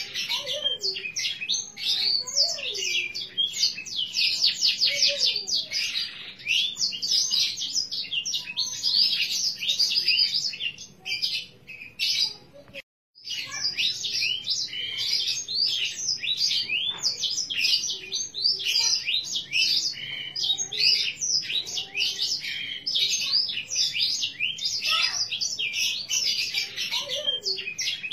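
Green domestic canary singing a long, continuous song of rapid high trills and chirps. The song breaks off briefly about halfway through, then resumes.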